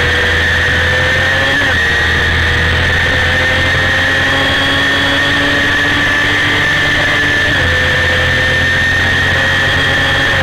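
1990 Honda CBR250RR's 250 cc inline-four running flat out at high revs, heard from the bike itself. The pitch creeps slowly upward, with short dips about a second and a half in and again near eight seconds.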